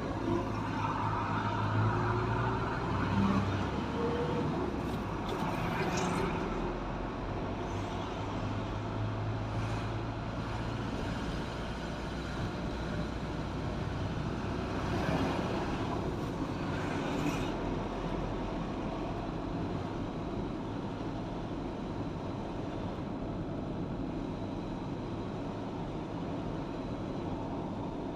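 Car driving along a road: steady tyre and engine noise, with a few brief louder swells as other traffic goes by.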